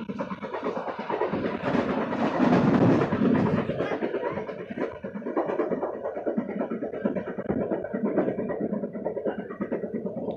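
Passenger train running past at speed, its wheels clattering over the rail joints over a continuous rumble.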